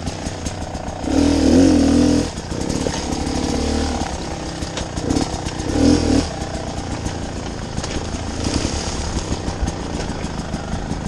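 300cc two-stroke enduro motorcycle engine running at low revs while crawling over rough ground, blipped louder twice: once about a second in for about a second, and again briefly around six seconds in.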